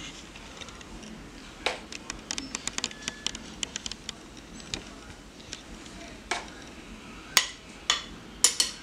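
A spoon clinking and tapping against a plastic container and a ceramic baking dish as a tomato-sauce topping is scooped and spread. A quick run of small clicks comes about two to four seconds in, and single taps follow every second or so.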